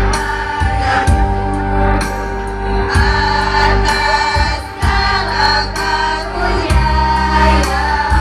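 A school choir singing a madrasah anthem together, held notes over backing music with a steady beat.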